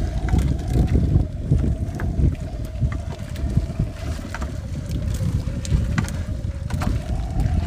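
Wind rumbling on the microphone over a steady, slightly wavering hum, with scattered light clicks and rustles as a gill net is hauled hand over hand into a small outrigger boat.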